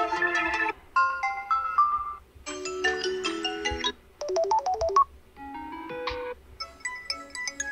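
Samsung Galaxy A55 ringtones previewed one after another: about six short electronic melodies, each playing for a second or so before it cuts off and the next begins.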